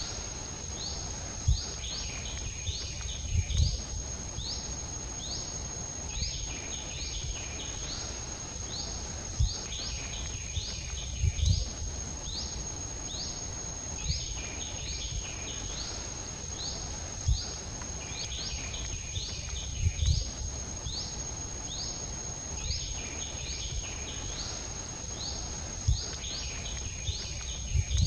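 Outdoor ambience: insects keep up a steady high drone while a bird gives bursts of short, falling chirps every few seconds. Occasional brief low thumps come through underneath.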